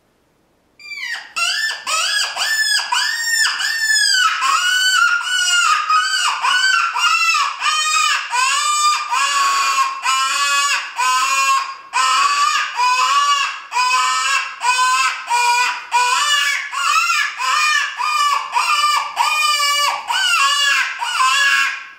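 Cane Creek Calls P-61 predator call blown with a hand cupped over its end, giving a long run of quavering, squealing cries, about two a second. Each note bends up and down in pitch, and the first few are higher before the cries settle lower. The call imitates a prey animal in distress to draw in coyotes, foxes and bobcats.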